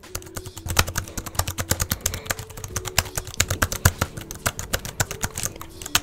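Fast typing on the Arteck Bluetooth keyboard's low-profile scissor-switch keys: a quick, irregular run of light key clicks.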